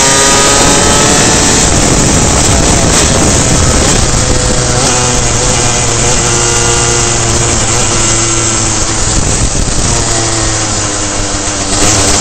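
Superkart's two-stroke reed-valve engine running hard, its pitch climbing in the first second and then wavering up and down. It eases off for a second or two near the end before picking up again.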